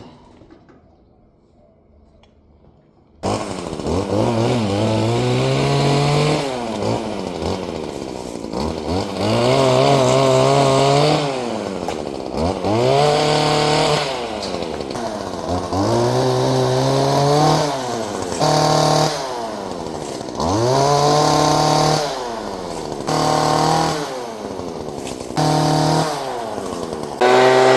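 Gas chainsaw starting abruptly about three seconds in, then revving up and down over and over as it cuts: the pitch rises, holds high under load and drops back every two to three seconds. In the second half it breaks into shorter stretches with sudden jumps between idle and full revs, and it ends at a steady high rev.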